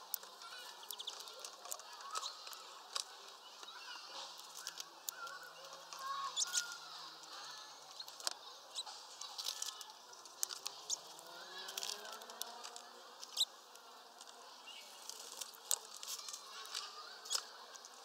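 Greenfinches feeding at a seed feeder: irregular sharp clicks and taps of beaks working at seeds, with faint bird calls. A low rising hum passes about ten seconds in.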